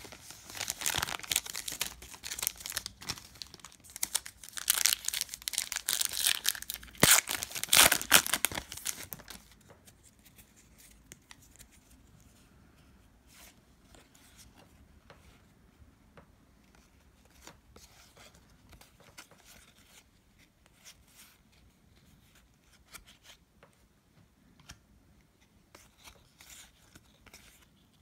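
A trading card pack wrapper being torn open and crinkled for about nine seconds. After that come faint ticks and rustles of cards being handled.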